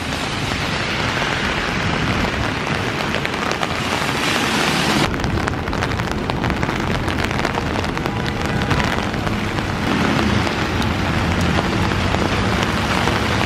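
Rain pattering on an open umbrella held overhead: a dense spatter of drops over the noise of a wet city street with passing traffic. The sound shifts abruptly about five seconds in.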